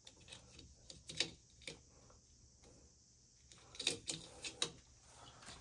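Irregular light clicks and scrapes of a small hand tool working on a copper water pipe at the main shut-off valve, with a quick run of clicks shortly before the end.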